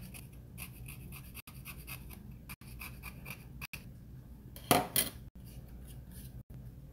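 Steel blade scraping a wooden Lee Enfield handguard in quick repeated strokes, taking off old cosmoline, with two louder, harder strokes about five seconds in.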